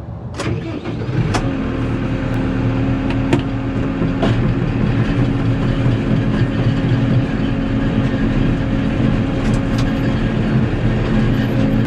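Tractor engine rising in speed over the first second or so, then running steadily at working speed, with a few sharp clicks or knocks in the first few seconds.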